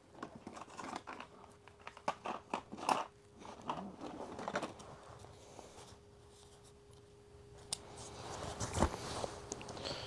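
Hands rummaging through a pile of gear: hard plastic and metal items knocking, clicking and rustling in quick irregular bursts for the first half, then a quieter stretch and a sharp click a little before the end.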